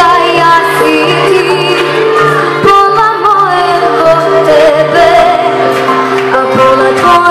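A young girl singing a pop ballad into a microphone through a PA, holding long, bending notes, over electronic keyboard accompaniment.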